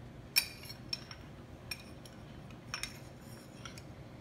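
Metal spoon clinking against glass bowls while scooping berries: about half a dozen short, ringing clinks spread irregularly, the loudest about half a second in.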